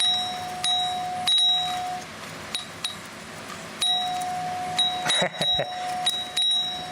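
Radio audio played through a Friedland Type 4 ding-dong doorbell wired up as a speaker. It gives a thin held tone broken by sharp, irregular clicks. The tone drops out about two seconds in and returns near four seconds.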